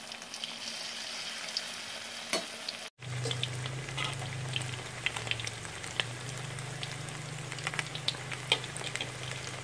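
Fritter batter deep-frying in hot oil in a wok: a steady sizzle with frequent small crackles and pops. The sound cuts out briefly about three seconds in, and after that a low steady hum runs under the sizzle.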